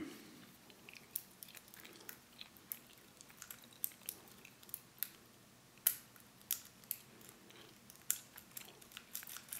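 Faint, sharp metallic clicks and ticks of a lock pick working the pins of a small pin-tumbler padlock under light tension, coming irregularly a few times a second.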